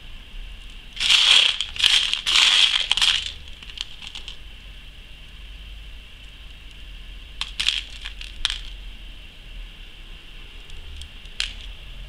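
Loose beads clattering against each other and a plastic tray as fingers sift through them: a burst of rattling from about one to three seconds in, then a few lighter clicks near the eight-second mark and one more near the end.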